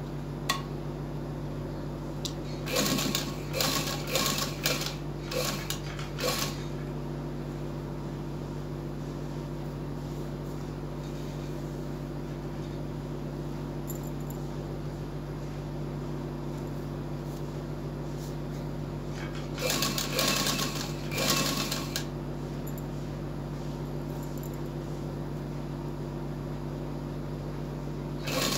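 Electric sewing machine stitching in short runs, a cluster of quick bursts about three seconds in and two more around twenty seconds in, as piping is sewn around a neckline. A steady electric hum runs underneath.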